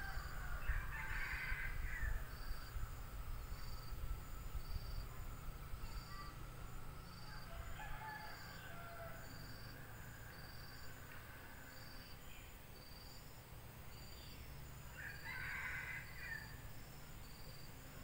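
A distant rooster crowing twice, about a second in and again near the end, over crickets chirping in a steady, even rhythm of roughly one chirp a second. A low rumble underlies it, heaviest in the first few seconds.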